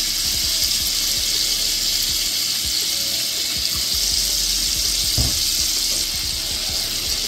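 Butter, white wine and caper sauce sizzling and bubbling steadily in a frying pan on the stove, with one light knock about five seconds in.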